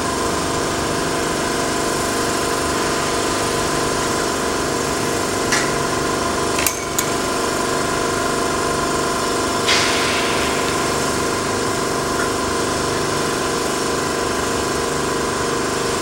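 Steady industrial machinery noise from a factory: a continuous hum made of several steady tones, with a few brief knocks about six and ten seconds in.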